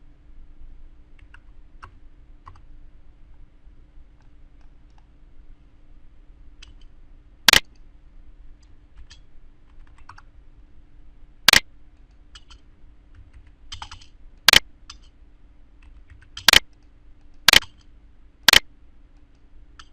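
Six sharp single clicks at a computer, spaced irregularly in the second half, with faint soft taps between them, over a low steady electrical hum.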